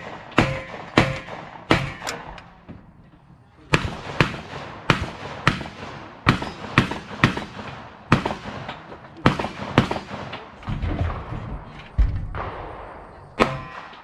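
Gunfire from a 3-gun stage: strings of rapid shots, about two a second, each with a short echo, broken by a pause of about a second and a half near the start.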